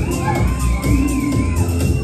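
Electronic dance music with a heavy bass beat and a high melody line that wavers up and down, playing loud over the stage loudspeakers for a lip-sync routine.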